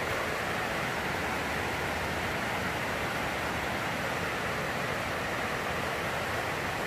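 Heavy rain pouring down on a plastic greenhouse roof, a steady, dense hiss with no letup.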